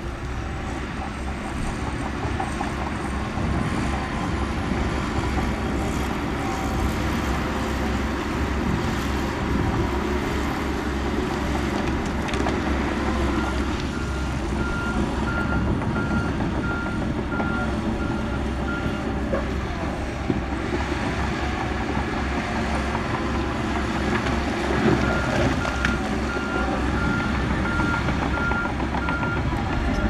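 Heavy earthmoving machinery running, diesel engines rumbling steadily. A reversing alarm beeps in an even series of high beeps, once around the middle and again near the end.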